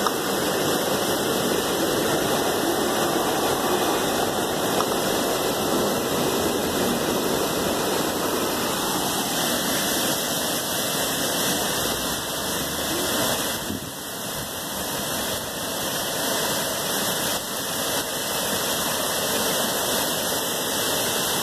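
Heavy rain pouring down in a sudden storm: a steady rush of noise that eases briefly about two-thirds of the way through.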